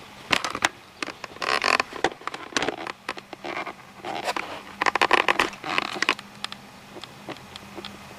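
Handling noise from a hand-held camera being moved around among the bridge's beams and gears: irregular scraping and rustling bursts with sharp clicks, settling down for the last couple of seconds, over a faint steady hum.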